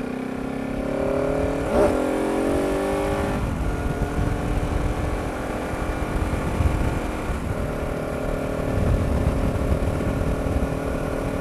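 Husqvarna 701's single-cylinder engine accelerating, its pitch rising and breaking twice in the first few seconds as it shifts up, then settling into a steady cruise. A low rumble of wind on the helmet-mounted microphone runs under it.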